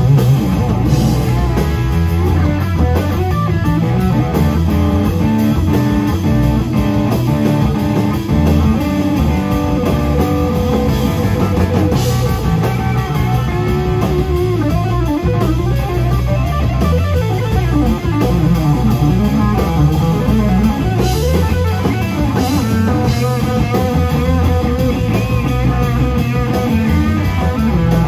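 Live instrumental rock trio: electric guitar, electric bass and drum kit playing together without a break, heard from the audience in a small club.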